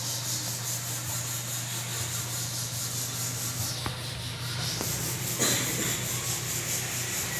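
Steady low electric hum of a Juki DDL-5550 single-needle industrial sewing machine's motor left running, under a continuous scratchy rubbing noise, with a couple of faint clicks about four seconds in.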